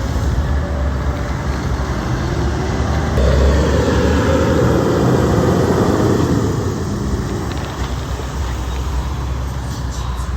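Heavy truck driving past on a road, its engine and tyre noise swelling about three seconds in and fading away over the last few seconds.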